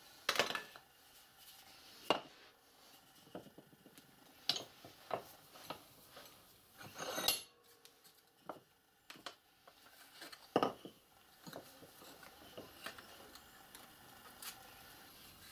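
Thin sheet-metal strip clinking and knocking against a steel bench vise and a round wooden former as it is handled and shaped: irregular clanks and taps, with a longer metallic rattle about seven seconds in.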